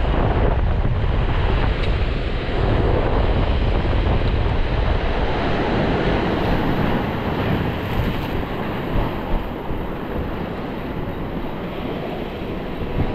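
Wind buffeting the microphone over surf washing on a shallow shore, a steady rushing noise heaviest in the low end. Two brief knocks come about nine seconds in.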